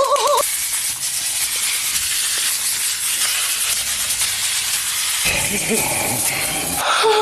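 Hundreds-and-thousands sprinkles pouring from a bag onto buttered bread: a steady hiss that gives way to lower, busier sound about five seconds in. A brief wavering tone opens it.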